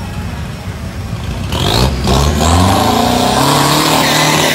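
Turbo-diesel pickup engine revved hard: about a second and a half in, the revs climb steeply with a rising turbo whistle, then hold high and loud.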